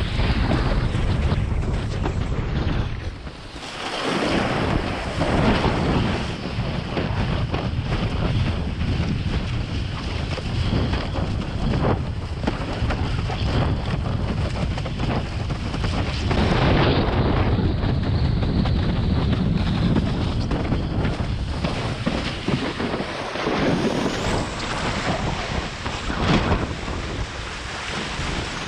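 Strong wind buffeting the microphone over the rush of water from a slalom windsurf board sailing in high wind, with a brief lull about three seconds in.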